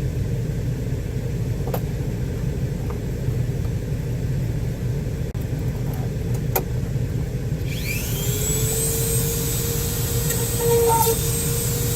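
A Dremel rotary tool spins up about two-thirds of the way in, its high whine rising and then holding steady as it bores a screw hole through the van's plastic interior panel. A steady low rumble runs underneath, with a couple of sharp clicks before the tool starts.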